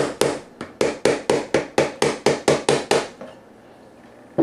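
A small hammer tapping quickly and evenly on the back of a razor scraper, about four strikes a second, chipping molded ribs off the lid of a plastic hard case. The tapping stops about three seconds in, and there is one more single knock near the end.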